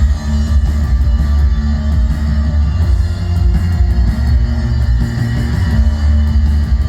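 Live post-punk band playing loudly, heavy sustained bass notes under electric guitar, as heard through a concert-goer's recording.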